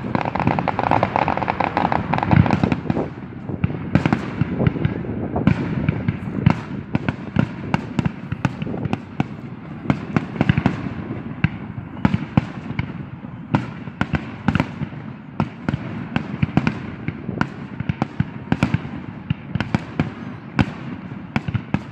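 Fireworks going off: a dense, irregular run of sharp bangs and crackles, several a second, with a hissing burst in the first few seconds.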